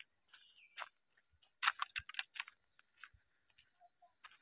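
Insects calling in a steady, high-pitched drone. A cluster of light clicks and rustles comes about one and a half to two and a half seconds in.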